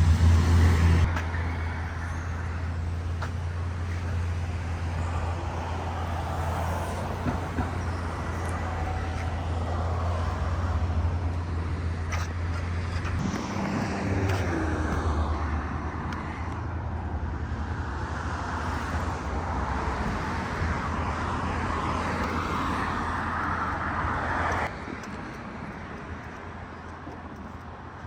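City street traffic: cars passing with a steady low rumble. The sound drops off abruptly near the end.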